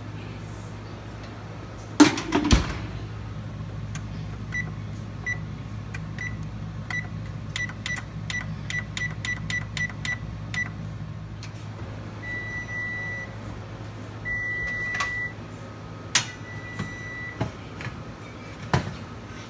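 Frigidaire electric oven's control panel beeping as its keys are pressed: a run of short high beeps that come faster and faster, then three longer beeps. About two seconds in, a loud knock and clatter like the oven door being shut, over a steady low hum.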